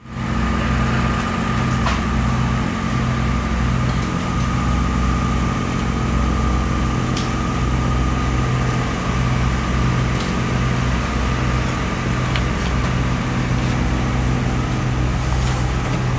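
A motor running steadily: a low, uneven hum with a faint steady whine above it and a few light clicks.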